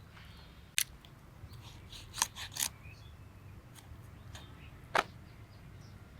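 A blade cutting raw chicken into pieces, giving about five sharp clicks and snaps: one about a second in, three in quick succession just after two seconds, and one near five seconds.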